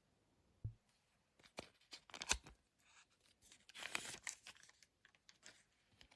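Trading-card pack wrapper being torn and crinkled in the hands: a string of short crackling rustles and clicks, with a longer rustle about four seconds in.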